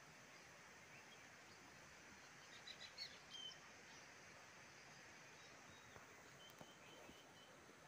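Near silence: faint outdoor background with a few faint, short high bird chirps, a cluster about two and a half to three and a half seconds in and a few more near the end.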